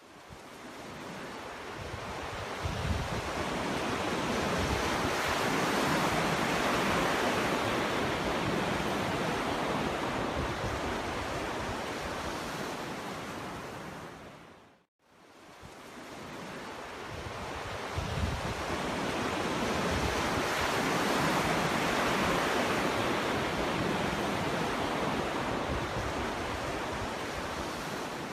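Ocean waves washing onto a beach. The surf comes in two long swells, each building over several seconds and then fading away, with a brief drop to silence between them about halfway through.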